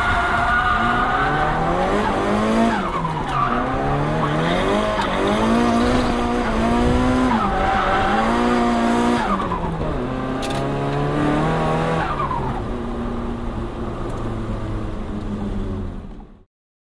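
Nissan Silvia S15's turbocharged four-cylinder engine with an HKS GTIII RS turbo, heard from inside the car while drifting: the revs climb and drop again and again over tyre squeal. The sound cuts off suddenly near the end.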